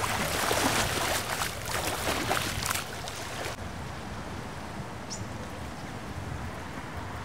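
Lake water lapping and splashing at the shore: busier for the first three seconds or so, then a quieter, steady wash.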